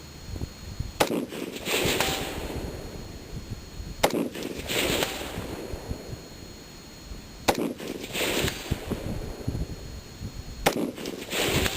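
Rock River Arms AR-15 rifle firing 62-grain rounds in slow aimed fire: four sharp shots about three seconds apart, each followed less than a second later by a softer, shorter rattle. Wind rumbles on the microphone throughout.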